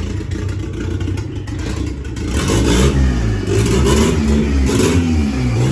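Chevrolet Corsa pickup's engine running and revving, getting louder about two seconds in, its pitch rising and falling repeatedly.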